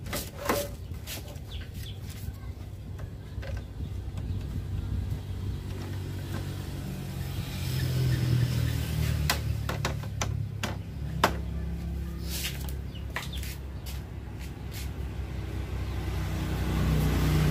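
Hard plastic clicks and knocks from the front grille and its bottom trim being fitted and snapped back onto a window air conditioner, a handful of them, most in the second half. Under them runs a steady low hum that swells about halfway through and again near the end.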